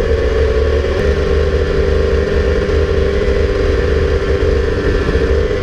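Snowmobile engine running at a steady speed while being ridden, one even tone with a low rumble under it.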